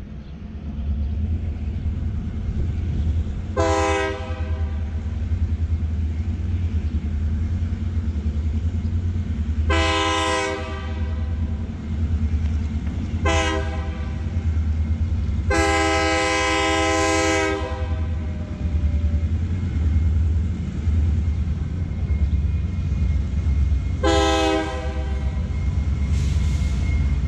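Diesel locomotive air horn sounding five blasts of different lengths, short and long, the longest about two seconds, over a steady low rumble: a train approaching and whistling for grade crossings.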